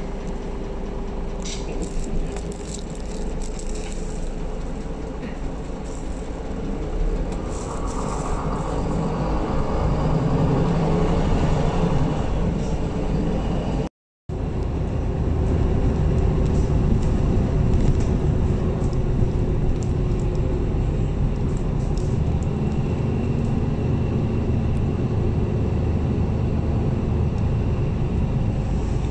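Cabin sound of a MAN A22 low-floor city bus on the move: engine and road noise that grows louder partway through the first half. The sound cuts out for a moment about halfway in, then the bus runs on steadily.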